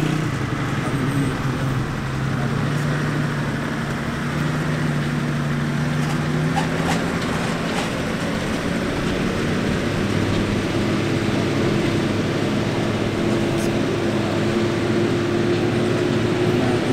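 An old 4x4 jeep's engine running steadily as it drives across loose sand. The drone's pitch shifts about halfway through.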